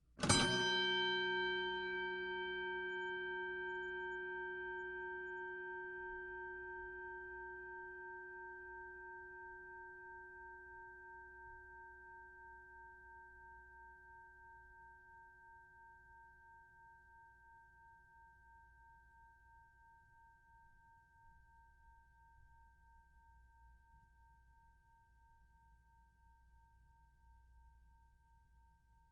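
A boxing ring bell struck once, ringing and slowly fading over about twenty seconds with a slight pulsing in the tone as it dies away.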